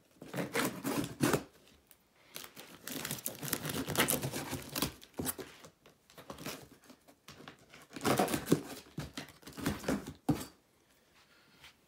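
Packing tape on a cardboard shipping box being slit with a knife and torn off, in four spells of scratchy ripping with short pauses between.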